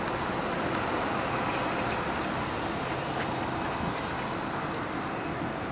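A G:link light-rail tram rolling slowly into a stop, its running noise mixed with a steady hum of street traffic. A faint high whine sits over it, strongest midway.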